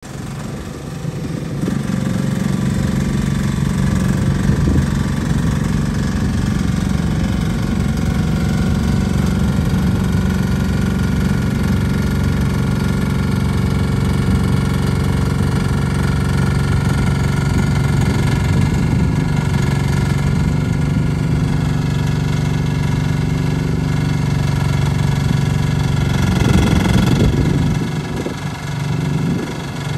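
Lucla TX10 mini excavator's engine running steadily as the machine tracks across a gravel yard. It gets louder over the first couple of seconds and swells briefly again near the end.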